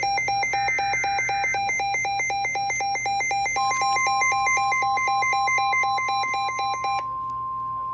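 An electronic alarm beeps rapidly, flipping between two pitches several times a second, over a short warbling burst of SAME digital header data. About three and a half seconds in, the steady single-pitch NOAA Weather Radio warning alarm tone starts and holds. The beeping stops about seven seconds in, while the warning tone runs on. Together these signal a new severe thunderstorm warning.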